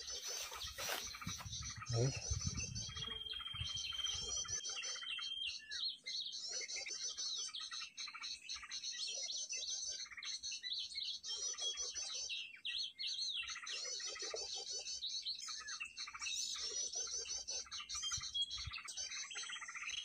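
Dense, repeating chirping and twittering of small songbirds: a bird-lure call (suara pikat) played to draw birds to lime sticks, with wild birds mixed in. One held whistle sounds for a couple of seconds early on, and wind rumbles on the microphone in the first few seconds.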